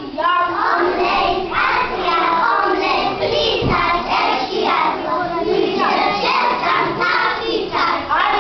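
A group of young children singing together, with one dull low thump about three and a half seconds in.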